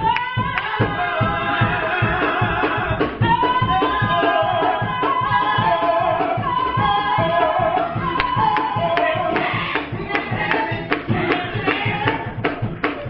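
Live gospel music: a singer holds long, wavering notes over a band with a steady drum beat.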